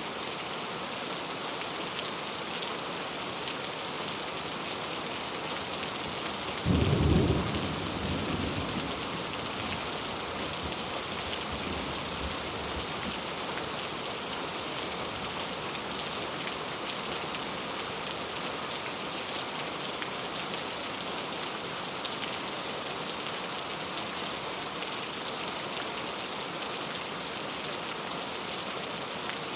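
Steady heavy rain falling on a road. About seven seconds in, a single low rumble of thunder starts sharply and fades over several seconds.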